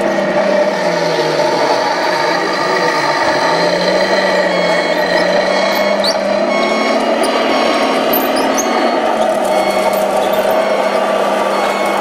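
Sound module of a 1/14-scale RC Komatsu D65PX bulldozer playing a diesel engine sound, steady and loud, its pitch dipping and coming back up during the first few seconds, then holding even.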